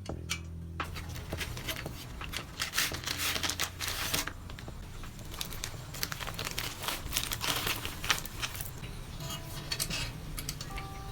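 Crinkling and rustling: a dense run of short scratchy noises that starts about a second in and goes on with brief lulls.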